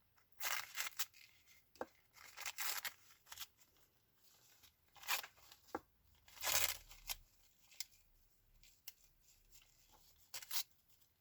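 Single-ply toilet paper being torn by hand into small pieces: irregular short rips, the longest about six and a half seconds in.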